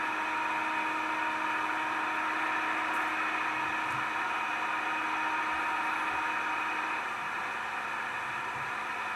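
Unexplained interference on the CB radio band heard through a CB radio: a steady hissing static with a steady low tone under it that drops out about seven seconds in.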